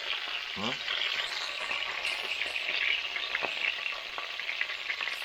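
Hot frying oil sizzling and crackling steadily around the fried chicken in the pan, just after the burner has been turned off, as the pieces are lifted out to be plated.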